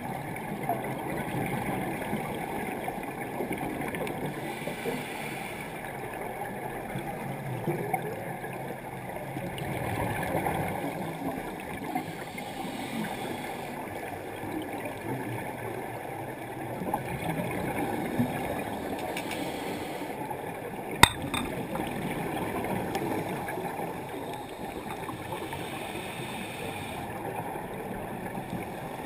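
Muffled underwater noise through a camera's waterproof housing: a steady crackling rumble of scuba divers' exhaled bubbles. One sharp click comes about two thirds of the way through.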